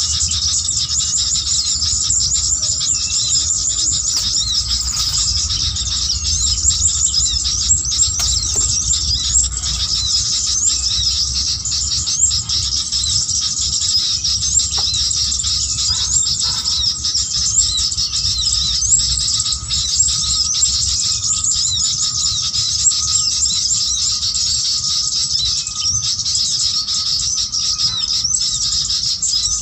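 Bird-trapping lure call: rapid, unbroken high-pitched chirping and twittering, with a low rumble underneath.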